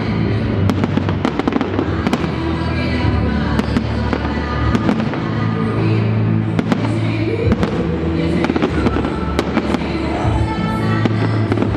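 A large fireworks display: a rapid, continuous run of bangs and crackling from aerial shells and rockets, over music.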